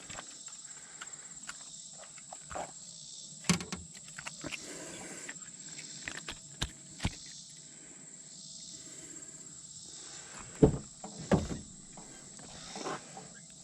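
Steady high-pitched insect drone with scattered knocks and rustles of handling; two loud thumps come close together about eleven seconds in.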